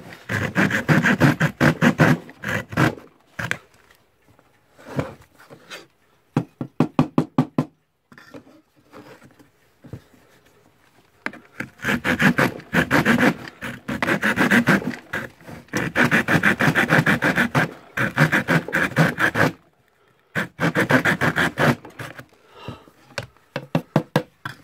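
Small hand saw cutting through thin plywood in quick back-and-forth strokes. The strokes come in runs of a few seconds, broken by short pauses, the longest about a third of the way in.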